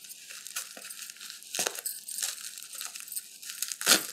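Plastic bubble wrap crinkling and tearing as it is pulled open by hand, with a sharp crackle about a second and a half in and a louder one near the end.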